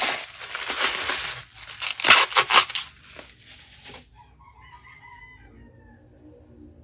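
Bubble wrap and plastic packaging crinkling and crackling as they are handled, loudest for the first four seconds. Then, much fainter, a drawn-out call with several tones runs to the end.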